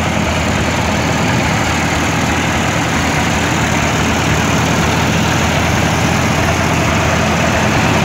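Vintage International Harvester four-cylinder tractor engine idling steadily.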